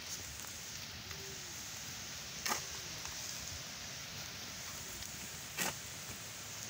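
Metal shovel blade digging into soil and throwing the earth onto a mound, with two sharp scrapes about three seconds apart.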